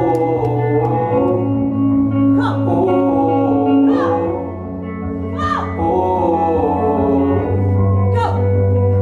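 Slow pop ballad playing back: sustained bass and held chords between sung lines, with short wordless vocal glides every second or so.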